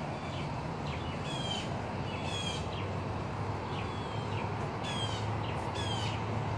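Birds calling outdoors: groups of short, downward-sliding chirps come a few times, over a steady low hum of background noise.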